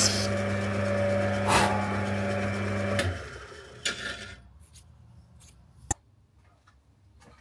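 Myford lathe running with a steady hum while a boring tool cuts a shoulder into a piston casting. The cutting hiss stops right at the start, and about three seconds in the lathe is switched off and winds down to near silence, with a couple of faint clicks.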